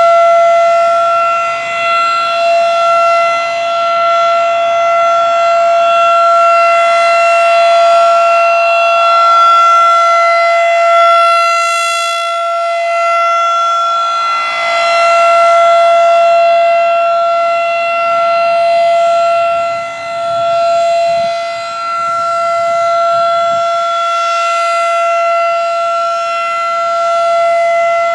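Federal Signal 2001-SRNB rotating outdoor warning siren sounding a steady alert tone on its monthly test. The single pitch holds level throughout, while the loudness dips and swells every few seconds as the rotating horn sweeps past.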